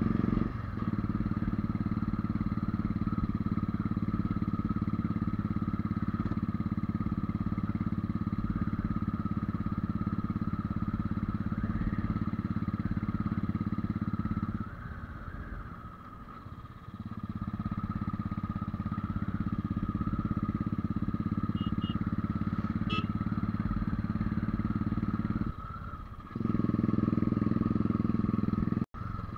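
Motorcycle engine running steadily under load while climbing a mountain road. The engine sound drops away for about two seconds midway and briefly again near the end, then picks back up. At this altitude the rider finds the bike short of power, labouring as if carrying four people.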